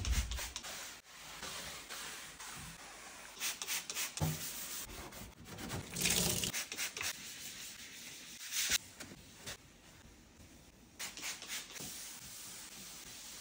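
Kitchen cleaning sounds: spritzes from a spray bottle of cleaner, scrubbing and rubbing, tap water running briefly about six seconds in, and a paper towel wiping a wooden countertop near the end.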